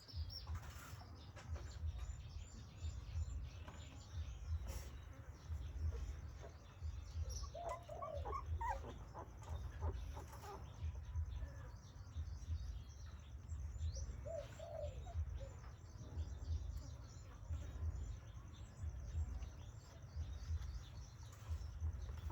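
Sleeping puppies giving a few soft, short whimpers, about eight seconds in and again near fifteen seconds, over a low, uneven rumble.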